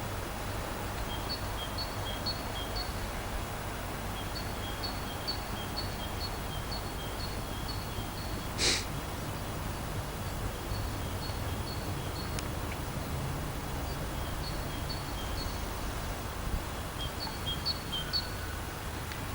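A small bird chirping over a low, steady rumble: short high notes alternating between two pitches, a few per second, in runs with pauses. One sharp click about nine seconds in.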